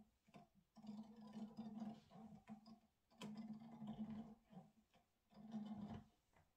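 A woman's closed-mouth vocal sounds, three held "mm" groans of about a second each, as the thread pulls out facial hair. A few faint clicks come between them.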